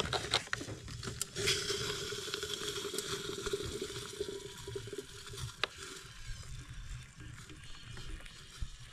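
Just-boiled water pouring from an enamelware coffee pot into a freeze-dried meal pouch. A few clinks come first, then a steady pour starts about a second and a half in and thins to a trickle after about six seconds.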